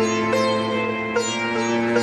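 Indian-style instrumental background music: plucked string notes ring out over a steady drone, with a new note struck every half second to a second.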